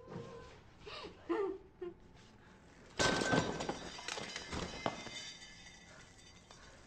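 A woman's short whimpering sounds, then about three seconds in a sudden loud hit with ringing tones that fades away over the next two seconds.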